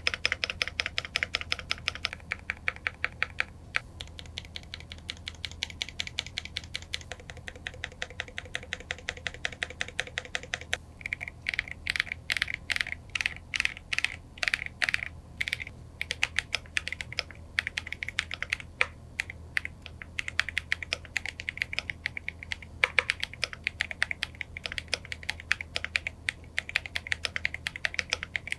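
Typing on a Glorious GMMK Pro mechanical keyboard fitted with thick PBT keycaps: a fast, even run of keystroke clacks that slows to separate, louder strokes for a few seconds near the middle, then speeds up again, over a faint steady low hum.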